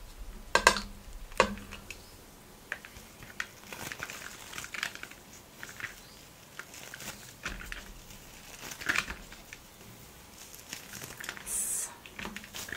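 Flaky, layered parotta being torn apart by hand: soft crackling and rustling tears, with a couple of sharp clicks in the first second and a half and a brief hissy rustle near the end.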